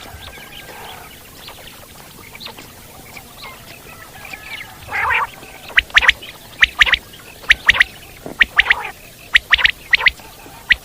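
Common quail calling: sharp, high notes in quick groups of two or three, repeated about once a second through the second half. Before that there are only faint chirps and one short harsh call about halfway.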